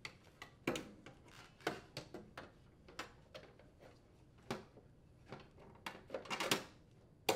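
Sheet-metal control box of a heat pump being handled and seated back into the unit's metal frame: scattered light clicks, knocks and rubbing, with a louder cluster of knocks about six seconds in.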